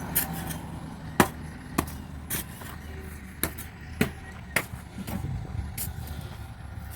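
A vehicle's steady low running rumble, with irregular sharp knocks and clacks over it, about eight in all.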